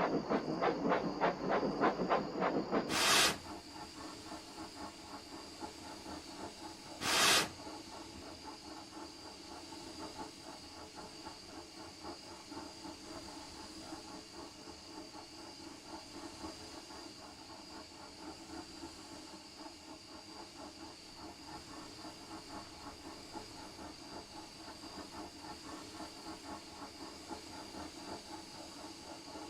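Steam locomotive sound effects: fast, even chuffing for the first three seconds, two short loud bursts of steam about three and seven seconds in, then a steady hiss with a quieter, even running rhythm.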